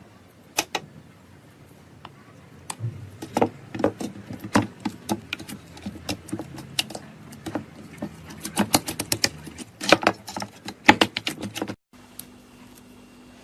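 Slime being squeezed and worked by hand, giving an irregular run of sharp clicks and pops, with a single click about half a second in. The sound cuts off suddenly near the end.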